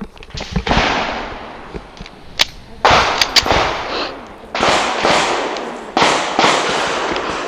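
Handgun shots from neighbouring shooters, about eight single reports irregularly spaced, each trailing off in a long echo.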